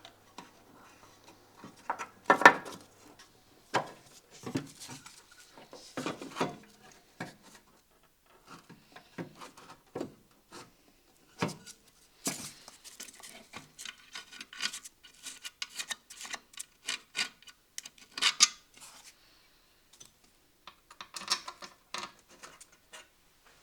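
Irregular clicks, knocks and rubbing of hard plastic and metal parts being handled and pressed into place while a Range Rover Classic tail-light assembly is fitted.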